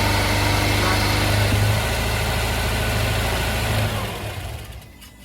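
Subaru Outback engine idling steadily with a low hum, carrying the noise the mechanic blames on a worn clutch that needs replacing. It dies away after about four seconds.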